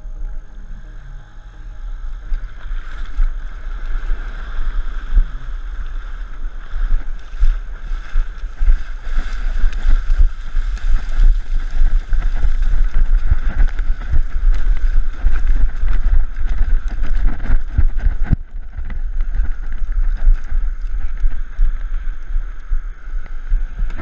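Breaking surf rushing and splashing around a kayak and its deck-mounted action camera, with a heavy low rumble of wind and water on the microphone, as the kayak is carried through the waves onto the beach.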